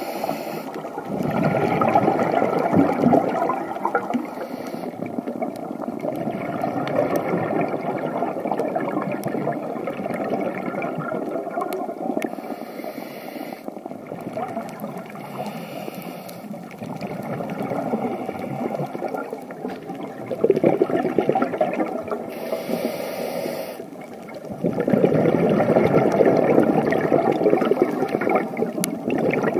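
A scuba diver breathing through a regulator, heard underwater through the camera housing: several breaths, each a short hiss on the inhale followed by a few seconds of bubbling exhaled air.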